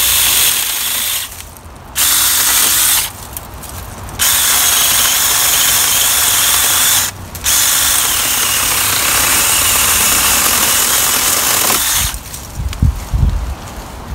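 O-CONN 24V mini cordless chainsaw with a 4-inch bar cutting dead dogwood branches, running in four trigger bursts with short pauses between them. It stops about two seconds before the end, and a few low thumps follow.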